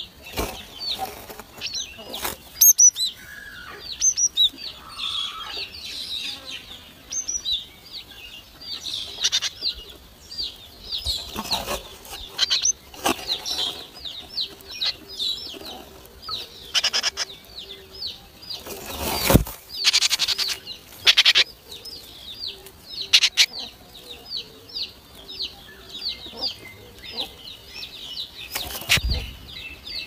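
Great tit nestlings begging: an unbroken run of high, thin cheeps, several a second. Over it come the sharp knocks and wing flutters of the adult moving about the nest box, the loudest just after the middle and near the end.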